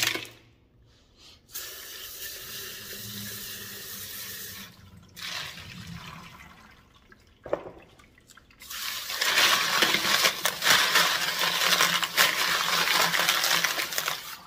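Tap water running over freshly polished agates and ceramic tumbling media as they are rinsed, with the stones clinking in the stream. The water runs for a few seconds, stops, then comes back stronger from about nine seconds in.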